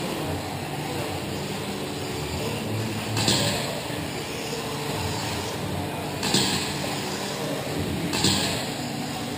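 17.5T brushless electric 2wd RC buggies racing on an indoor dirt track: a steady hum of motors and tyres, with three short louder hissing rushes as cars pass close.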